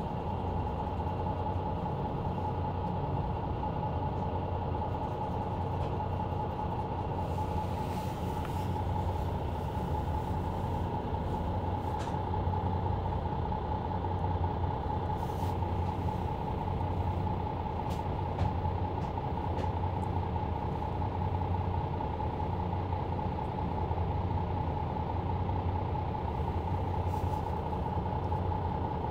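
Interior noise of a Mercedes-Benz Citaro C2 LE bus with a ZF EcoLife automatic gearbox, heard from the rear seats while driving at a steady pace: a constant low engine hum under a steady whine, with a few short rattles and knocks from the body.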